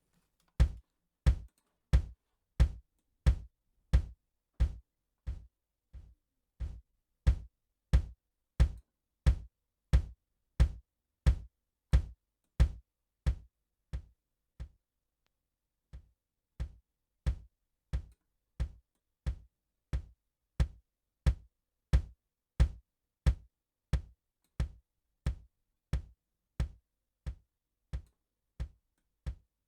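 A drum sample from a drum-sampler plugin is triggered repeatedly, about one and a half hits a second. Each hit is a short, low, bass-heavy thump with a sharp click on top. The hits vary in loudness and length as the sound's attack-decay-sustain-release envelope is adjusted, with a pause of about a second and a half midway.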